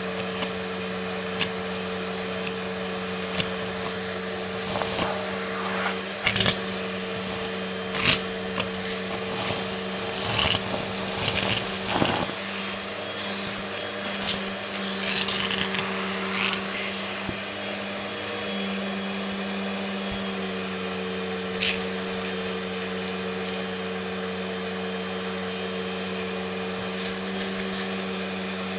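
Vacuum cleaner running with a steady motor hum, with many sharp clicks and crackles of debris being sucked up through the first half, then running steadily with only the occasional click.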